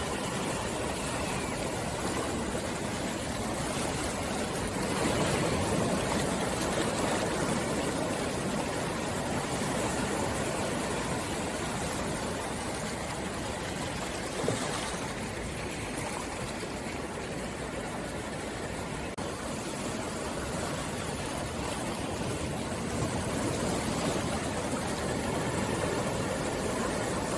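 Sea waves washing on the shore: a steady rush of surf that swells about five seconds in and again near the end, with a single sharp click about halfway.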